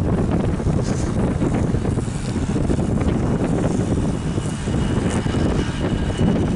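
Strong wind buffeting the microphone with a steady low rumble. About two-thirds of the way in, the faint high whine of an approaching jet airliner's engines comes in.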